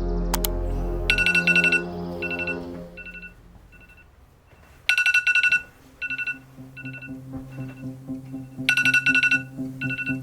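Background music: held chords fade out and a new track starts. It has a telephone-ring sound that comes three times, about every four seconds, each followed by fading, echoing beeps, with a bass line coming in partway through.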